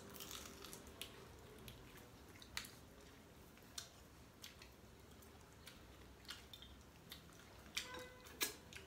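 Quiet eating of shellfish by hand: scattered soft mouth smacks and small clicks of chewing and handling the food over low room tone, a couple of clicks louder near the end.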